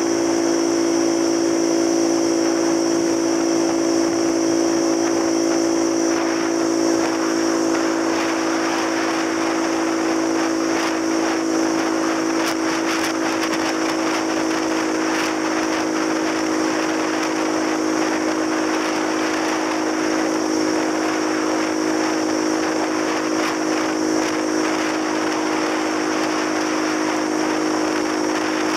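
Small step-through motorcycle's engine running at a steady cruise, one even drone, with wind rushing over the handlebar-mounted microphone.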